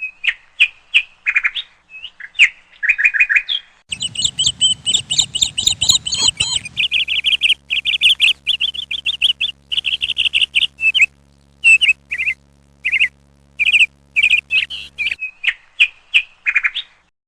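Small birds chirping in quick runs of short, high calls. A faint low hum sits underneath from about four seconds in until shortly before the end.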